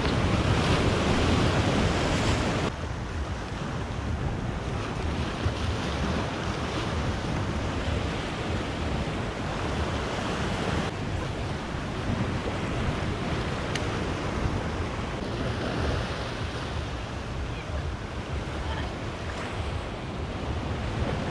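Sea waves washing against shoreline rocks, a steady surf with wind buffeting the microphone; it drops a little in loudness about three seconds in.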